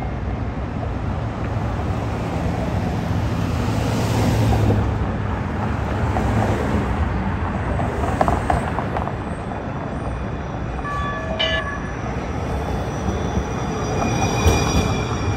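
Siemens S70 light rail train rolling in alongside, with a steady rumble of wheels on rail mixed with road traffic. About eleven seconds in there is a brief run of clear tones, then steady high-pitched whines from the train as it draws up at the platform.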